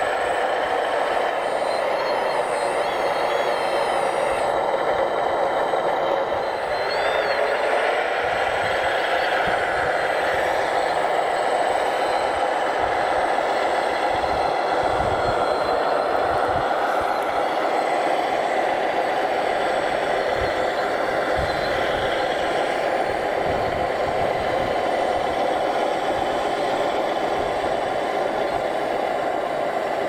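Radio-controlled scale construction machines running: a steady mechanical whir with a faint rising and falling whine, near-constant in level.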